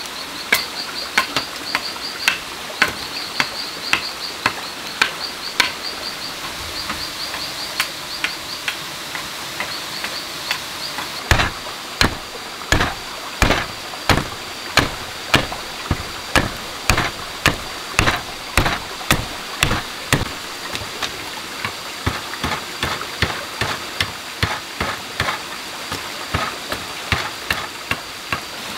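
A blade chopping into a fresh wooden plank, splitting off chips as a crossbow stock is shaped: sharp separate strokes about one to two a second, the heaviest near the middle. Insects chirp high in quick pulses at first, then hold a steady drone.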